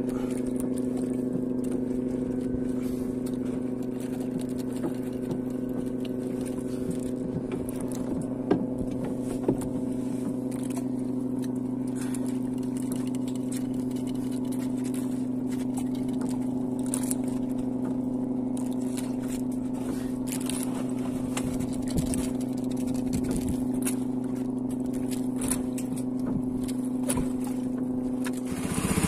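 Small fishing boat's engine idling steadily, a low even hum, starting to pick up just at the end. A few light knocks and scrapes sound over it.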